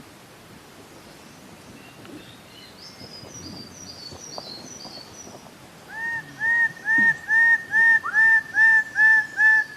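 Bird-of-paradise calling: faint high chirps, then about six seconds in a loud series of short, identical arched notes repeated two to three times a second. A steady hiss lies underneath.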